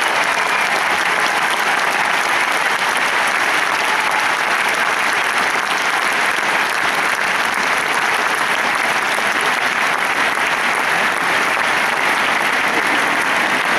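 Crowd applauding, a steady unbroken clapping that holds at the same level throughout.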